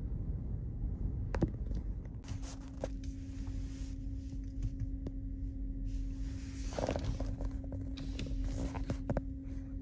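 Low steady engine rumble of a vehicle or ferry underway. A steady hum tone joins it about two seconds in, with scattered light clicks.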